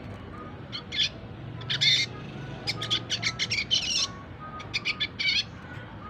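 Young red siskin, about four months old, twittering in bursts of quick high chirps and trills: an immature bird practising its chattering song. There is a short burst about a second in and another near two seconds, then a rapid run of notes for over a second and a shorter run near the end.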